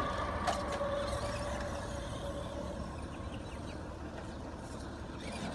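Steady low mechanical hum, with a steady whine that fades out about halfway through and a single click about half a second in.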